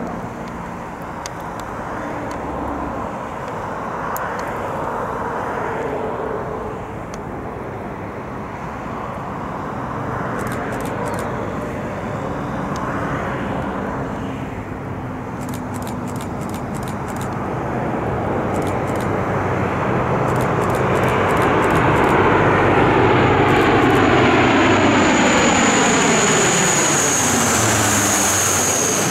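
Lockheed C-130J Hercules on landing approach, its four Rolls-Royce AE 2100 turboprops and six-blade propellers droning steadily. The drone grows louder over the last ten seconds, and as the plane comes overhead near the end it turns into a sweeping sound with a high whine that falls slightly in pitch.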